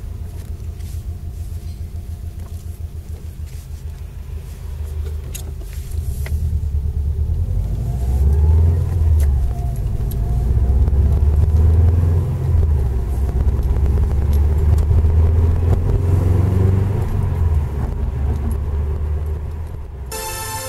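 Subaru Impreza WRX driving, heard from inside the cabin: a steady low engine and road rumble that grows louder a few seconds in as the car picks up speed. There is no bearing whine from the five-speed gearbox, whose centre diff bearings have been replaced.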